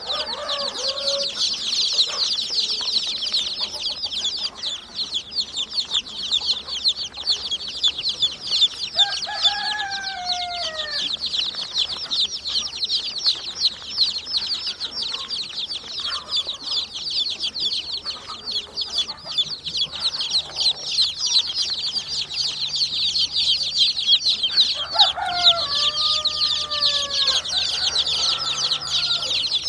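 A crowd of baby chicks peeping continuously, many short high chirps overlapping. Some lower, longer calls that bend in pitch break in twice, about a third of the way in and again near the end.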